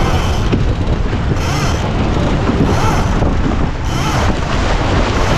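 Loud wind buffeting the microphone on a sportsboat under sail. Water rushes along the hull beneath it, and a hiss surges about once a second as the boat runs through the chop.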